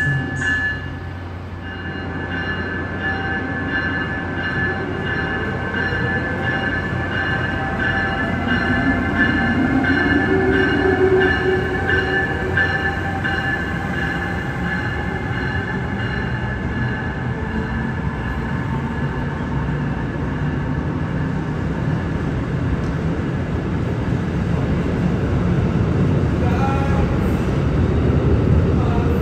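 Amtrak ACS-64 electric locomotive pulling a passenger train out of the station, with a steady high electrical whine and a whine rising in pitch as it picks up speed. Near the end the low rumble of the passenger cars rolling past grows louder, with a few clicks from the wheels.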